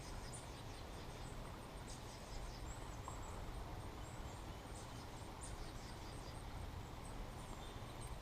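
Faint, scattered bird chirps over a low steady outdoor background.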